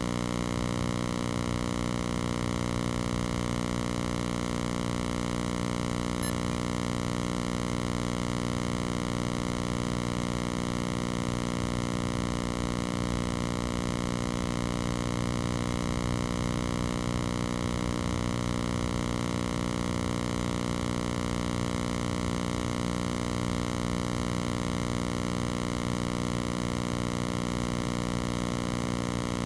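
A steady, unchanging hum with many overtones, holding the same pitch and level throughout.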